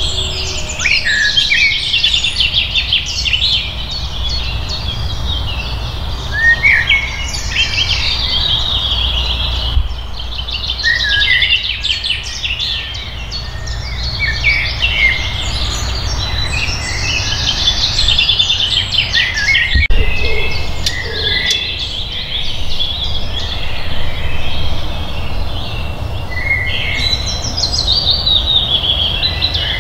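Several songbirds singing, with dense overlapping chirps and trills over a steady low rumble.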